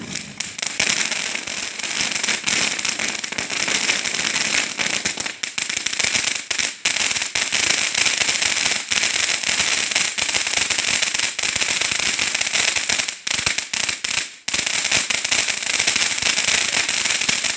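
Ground firework fountain spraying crackling sparks: a loud, dense hiss packed with rapid crackles, with a couple of brief gaps late on.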